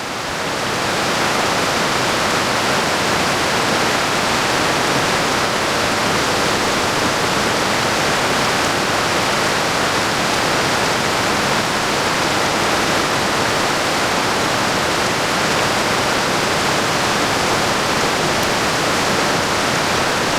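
Steady rushing of a waterfall and creek. It swells slightly about a second in and then holds even.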